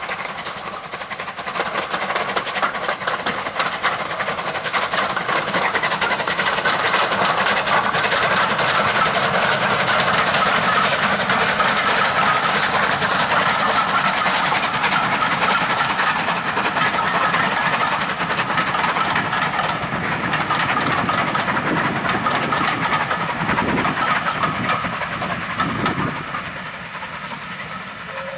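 Bulleid West Country class steam locomotive and its train of coaches passing close by: exhaust and hiss from the engine and clatter of wheels over the rail joints, the sound growing over the first few seconds and fading near the end as the coaches pull away.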